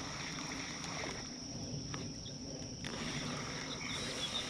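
Quiet outdoor ambience with a steady high-pitched whine and a few short chirps near the end, and a faint single click about two seconds in.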